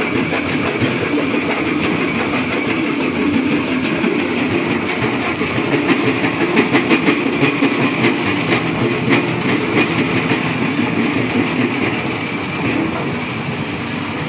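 JCB tracked excavator running under load while its crusher bucket rattles in a fast, continuous clatter, crushing broken rock into gravel.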